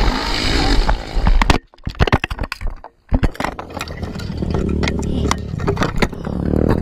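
An ATV engine running with wind noise on the helmet-camera microphone, breaking about a second and a half in into a string of sharp knocks and clatter with two brief dropouts, typical of the quad crashing. A low engine rumble with more knocks follows.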